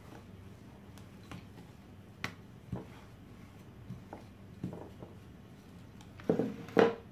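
Wooden rolling pin working a sheet of puff pastry on a wooden board: scattered soft taps and knocks, with a louder knock near the end.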